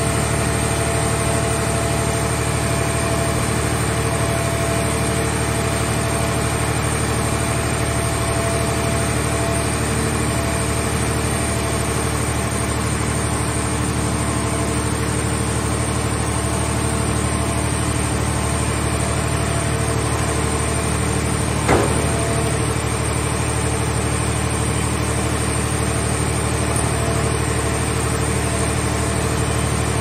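Hydraulic machinery of a scrap car shell baler and its grab loader running at a steady drone with a constant hum as the grab lifts a car shell into the press chamber. A single sharp knock about two-thirds of the way through.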